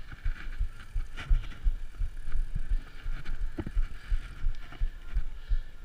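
Irregular low thumps and knocks from a Santa Cruz downhill mountain bike being pushed up a steep dirt trail, its frame and wheels jolting over the ground, heard through a camera mounted on the bike.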